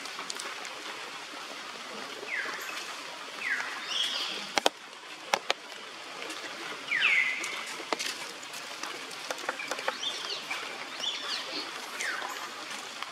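Short, high chirping animal calls, each sweeping down in pitch, repeated every second or so with gaps, over a steady outdoor hiss; a couple of sharp clicks midway.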